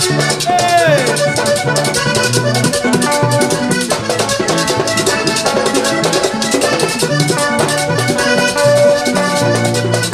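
Live vallenato music with no singing: a button accordion plays the lead melody over electric bass and a caja drum, with a fast, even high percussion rhythm.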